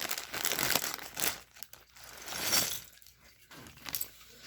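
Plastic LEGO polybag crinkling as it is handled, in a few separate bursts of rustling, loudest in the first second.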